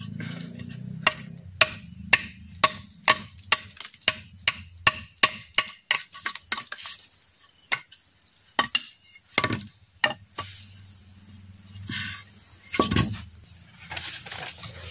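A freshly resharpened golok tebas machete chopping into an upright bamboo stalk, a quick run of sharp strikes about two a second. About seven seconds in, the strikes thin out to a few scattered chops.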